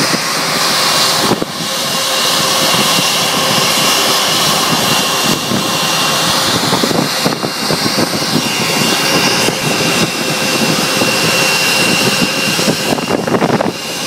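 Airbus A320 jet engines running at idle with a steady high whine.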